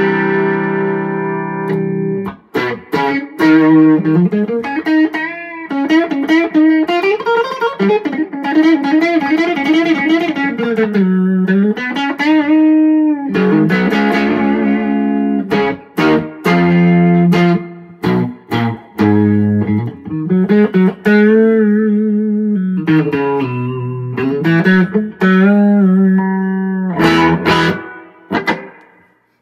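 Gold-top electric guitar with P-90-style soapbar pickups played through a 15/5-watt Champ-style combo amp with two 12-inch vintage Weber speakers: a held chord rings, then a single-note lead line with string bends and vibrato, and a few strummed chords near the end that ring out and fade.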